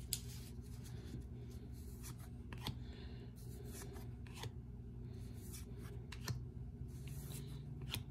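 Baseball trading cards handled and slid one by one through the hands: faint papery rubbing with soft flicks every second or so, over a low steady background hum.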